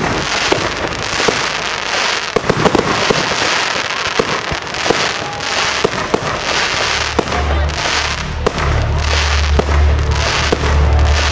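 Aerial fireworks going off: a rapid string of sharp bangs and pops with waves of hissing, crackling bursts. About seven seconds in, a low steady rumble comes in underneath.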